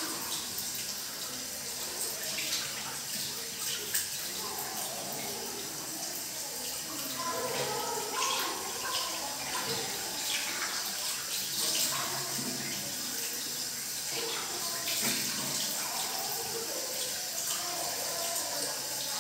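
Water running from a tap into a sink, with irregular splashing as hands scoop it over a face to rinse it with cold water.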